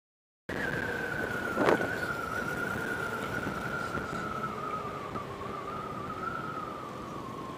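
Honda Click 125i scooter riding noise, heard from the bike: road and wind noise with a steady whine that slowly drops in pitch as the scooter slows. One short sharp knock comes just under two seconds in. The first half second is silent.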